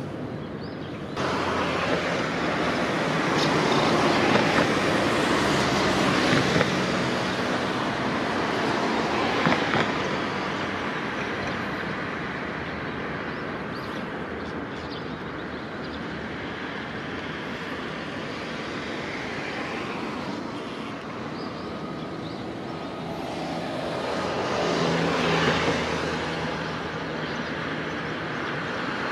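Road traffic noise: a steady rush of cars passing on a road. It jumps up abruptly about a second in, then swells as vehicles go by a few seconds in and again near the end.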